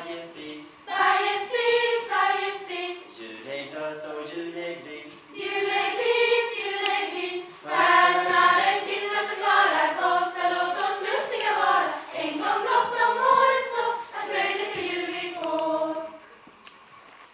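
A choir of young women and children singing a Swedish Lucia song in phrases, with pauses for breath between them. The singing stops about sixteen seconds in.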